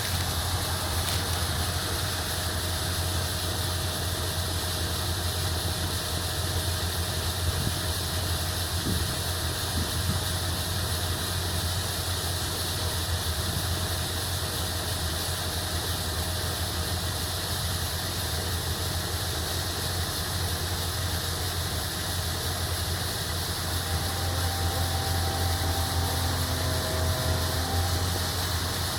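Farm machinery engine running steadily: a constant low drone with a hiss of noise over it.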